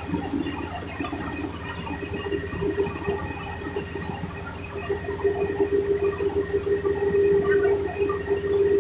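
Combine harvester running steadily, its engine and threshing machinery giving a continuous drone with a steady hum. It grows louder about five seconds in.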